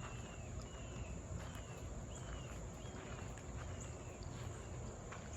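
Outdoor ambience: a series of short, high falling chirps, roughly one or two a second, over a steady high-pitched tone and a low steady rumble.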